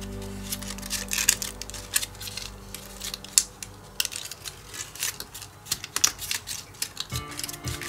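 Stiff white cardstock being handled and fitted together, with irregular sharp crinkles and clicks as paper tabs are pushed into their slots.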